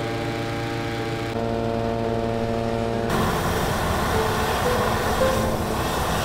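A balloon inflator fan's small petrol engine running steadily, blowing cold air into a hot air balloon envelope during cold inflation, under background music with held notes that change every second or two.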